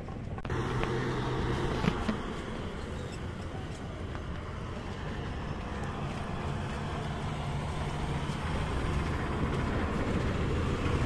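A motor engine running steadily, with a low hum and a haze of traffic-like noise that grows slowly louder toward the end.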